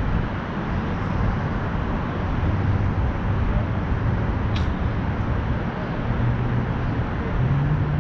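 Steady rumble of road traffic, with one vehicle's engine note rising in pitch near the end and a brief sharp click about halfway through.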